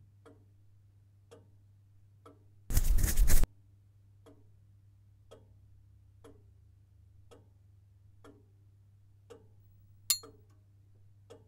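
A clock ticking about once a second over a low steady hum. About three seconds in there is a loud burst of noise lasting just under a second, and near the end a single short sharp click.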